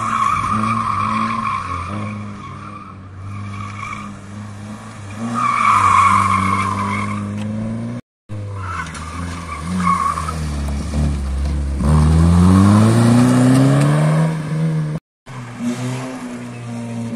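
Small front-wheel-drive hatchbacks on a slalom run, first a Citroën Saxo and then a Ford Focus: engines revving hard, dropping between turns and climbing again, with tyres squealing through the tight turns. The sound breaks off abruptly twice.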